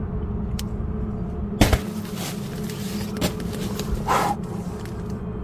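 Objects hitting a tent from outside: one sharp thump about a second and a half in, then a few lighter knocks and a short rustle. A steady low hum runs underneath.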